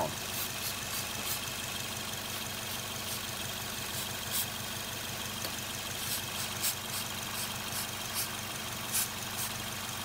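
Small four-cylinder petrol engine idling steadily, with short hisses of carb cleaner sprayed from an aerosol can around the vacuum hoses, several times and mostly in the second half. The idle speed holds steady, a sign of no vacuum leak at the hoses sprayed.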